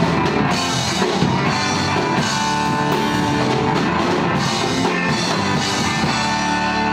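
Live rock band playing electric guitars, bass guitar and a drum kit with cymbals. Near the end the drums stop and held guitar notes ring on.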